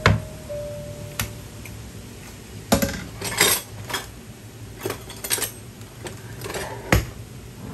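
Glass salt jar with a metal clasp lid and small kitchen utensils being handled on the counter: a string of separate clinks and knocks, the sharpest at the start and about seven seconds in.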